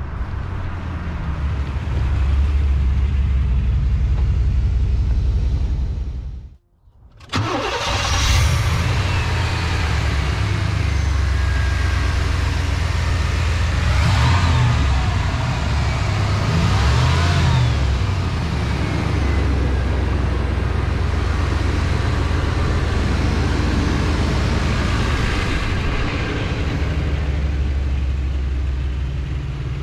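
1992 Cadillac Brougham's 5.0-litre V8 running as the car drives up. After a short break about seven seconds in, the engine starts with a quick rising note and runs on, with its speed rising and falling a couple of times midway.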